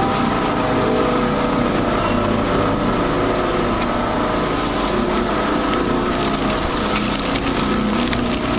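A large machine running with a steady, dense mechanical din.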